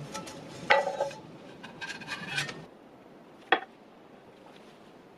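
Kitchen utensils clinking and scraping against cookware: a sharp clink with a short ring about a second in, a quick run of clinks and scraping around two seconds in, and one more clink later.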